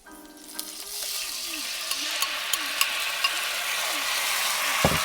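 Liquid sauce poured into a hot pan of browned garlic, sizzling and crackling. The sizzle builds up within the first second and then holds steady, with two low knocks near the end.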